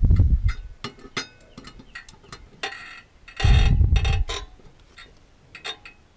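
Hand wrench clicking and clinking on the blade bolt under a Husqvarna garden tractor's mower deck, in scattered sharp ticks. Two louder dull rumbles come at the start and again about halfway.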